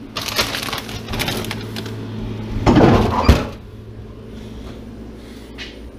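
Items being handled inside an open refrigerator freezer compartment: rattling and clattering, loudest a little before halfway through, with one sharp knock.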